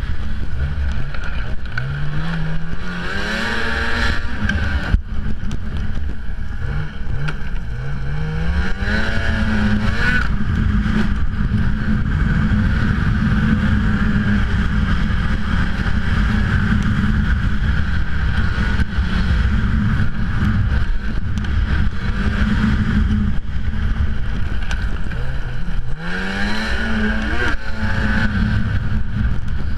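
Ski-Doo XRS snowmobile engine running under throttle while riding, its pitch sweeping up as it revs several times: about a second in, around seven to nine seconds in, and again near the end.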